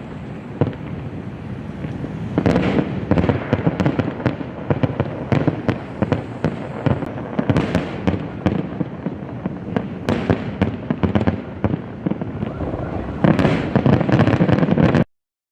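Fireworks display: aerial shells bursting and crackling in a near-continuous string of sharp bangs, with heavier volleys about two and a half seconds in, around ten seconds, and near the end, where the sound cuts off abruptly.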